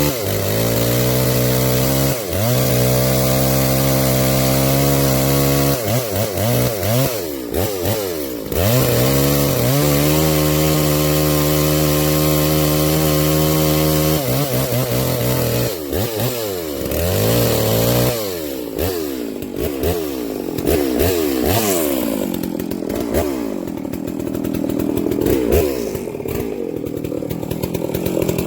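Farmertech G660 two-stroke chainsaw revving to full throttle and holding there for several seconds at a time, dropping back briefly between runs. In the last ten seconds the engine speed rises and falls unevenly.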